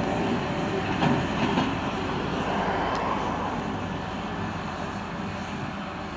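Diesel engine of a telescopic handler running as the machine drives away, the sound slowly fading.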